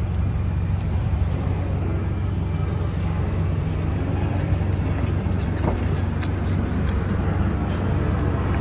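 Steady low rumble of vehicle noise, with a few faint clicks about five to six seconds in.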